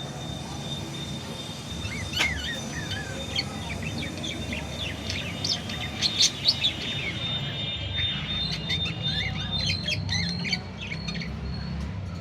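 Budgerigar chirping in quick, short rising and falling notes, the contented chattering of a happy budgie, with a louder cluster of chirps about six seconds in. A steady low background hum lies underneath.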